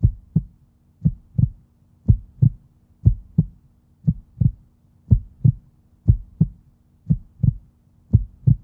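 Heartbeat sound effect: slow paired 'lub-dub' thumps, about one pair a second, steady throughout.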